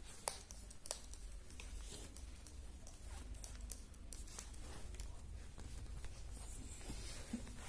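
Faint rustling and scratching of hands rubbing a Labrador puppy's fur on a bedspread, with scattered small clicks over a low handling rumble.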